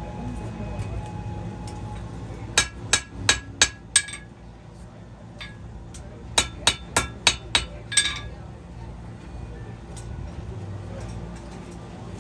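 Blacksmith's hammer striking hot steel on an anvil, ringing with each blow: a run of about five blows, a short pause, then another run of about six. The smith is hammering the blade of a horseshoe knife straight.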